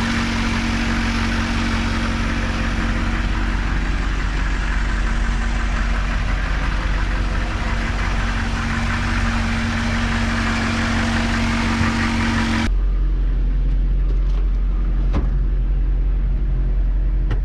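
The M1008 CUCV's 6.2-litre V8 diesel idling steadily, heard from beside the open hood. About thirteen seconds in the sound turns suddenly dull, leaving only the low idle rumble as heard from inside the cab, with a single click a couple of seconds later.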